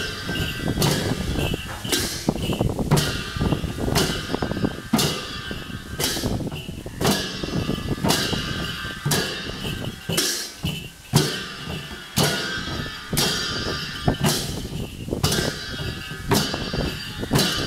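Yakkha chyabrung barrel drums and a dhol beaten in a steady dance rhythm, with hand cymbals clashing about once a second and ringing after each clash.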